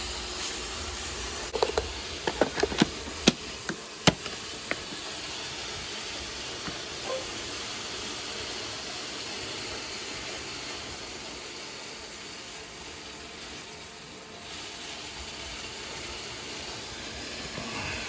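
Steady whooshing hiss of robot vacuum motors running, with a few sharp clicks and knocks in the first four seconds as the Roomba and its dock lid are handled.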